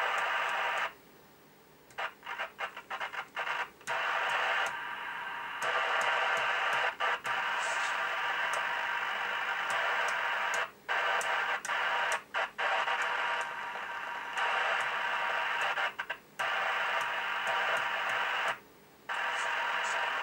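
Ford Roadmaster 500 UK 27/81 MHz FM CB radio (Cybernet 135 chassis) giving out empty-channel static hiss from its speaker as the channel knob is turned. The hiss drops out briefly several times, sometimes in quick flickers, as the set steps from channel to channel, and no station comes through.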